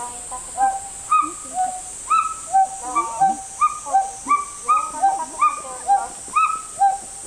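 Gibbon song: a steady run of loud hooting notes, about two a second, each sliding up and then down, higher and lower notes alternating.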